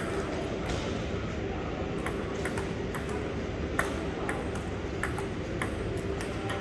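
Table tennis ball clicking back and forth in a rally, a quick run of sharp ticks from paddles and table, about three a second, the loudest about four seconds in. A steady low hum of the hall runs underneath.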